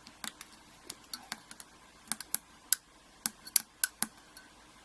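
Irregular sharp metallic clicks and taps from a thin steel shim being pushed into a dimple euro cylinder lock alongside the plug. The shim will not go fully home.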